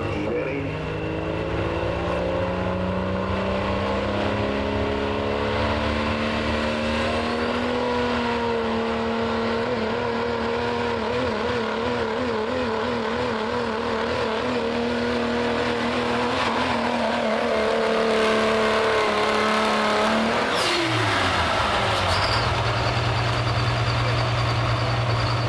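Turbocharged diesel pickup engine under full throttle pulling a weight-transfer sled. Its pitch climbs over the first several seconds, then holds with a wavering pitch as the truck bogs down. About 20 seconds in the driver lets off, and the engine drops quickly to a steady idle.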